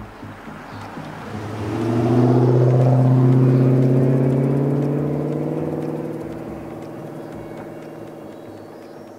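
2008 Dodge Challenger SRT8's 6.1-litre HEMI V8 exhaust as the car drives past, the engine note rising briefly as it nears, loudest about two to four seconds in, then fading as it pulls away.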